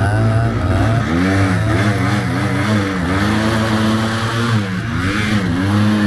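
Yamaha Blaster ATV's single-cylinder two-stroke engine running under throttle while riding, its revs falling and climbing again a few times, with wind and rushing noise over it.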